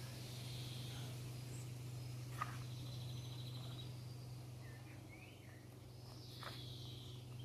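Faint garden birdsong: scattered chirps and short trills over a steady low hum.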